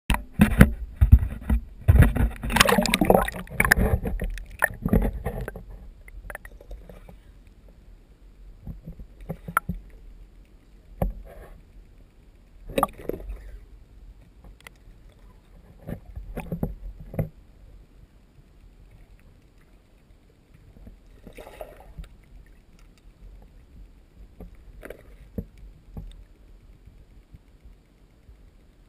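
Loud splashing and knocking for the first five seconds or so as a GoPro in its waterproof housing goes into the water, then muffled, scattered knocks and bumps from the submerged housing.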